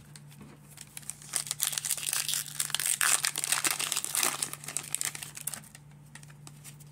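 Wrapper of a 2022 Donruss baseball card pack being torn open and crinkled by hand: a dense crackling, starting about a second in and dying away after about four seconds.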